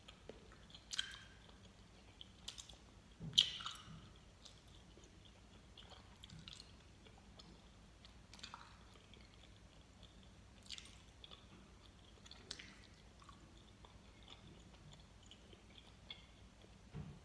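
A person chewing chewy gummy candy with the mouth closed: scattered soft, wet smacks and clicks, the loudest about three and a half seconds in.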